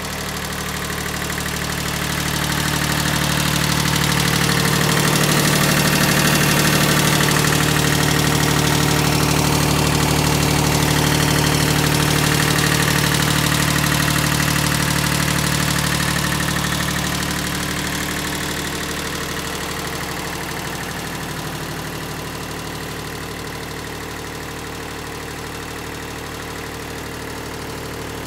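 Mitsubishi MT1601D compact tractor's diesel engine idling steadily. It is louder for several seconds in the middle, as the microphone comes close to the engine bay, then eases off.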